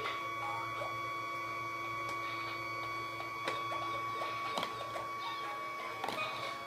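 Ball-popping elephant toy running, its motor giving a steady whine, with plastic balls clicking and knocking against it a few times.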